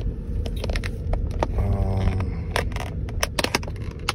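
Clear plastic lid of a takeout food container crackling and clicking as it is pried off, with many sharp snaps throughout. A steady low rumble of the car cabin sits underneath.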